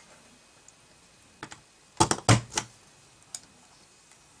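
Sharp plastic clicks and a clack of an envelope punch board being worked: cardstock set against the board and the punch pressed. A quick run of four loud clicks about two seconds in, with a few lighter taps before and after.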